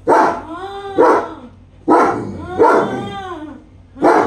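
Long-coated German Shepherd barking about five times in quick succession, loud barks that each trail off into a falling, howl-like tail.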